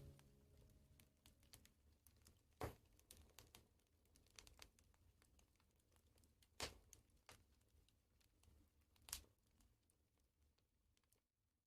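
Faint crackling of a burning wood fire, with small clicks and three louder pops spread through, fading away near the end.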